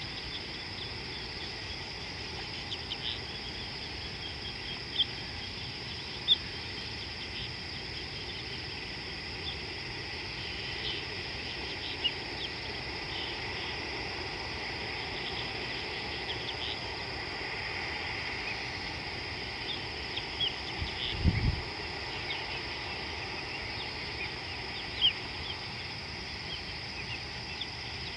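Steady high-pitched insect chorus, typical of crickets, with scattered short high chirps and clicks over it. A brief low thump comes about 21 seconds in.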